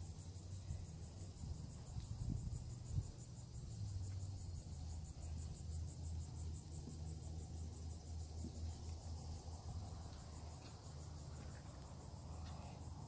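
A cricket-like insect calling from the vegetation in a high-pitched trill of fast, even pulses, over a steady low rumble, with a single bump about three seconds in.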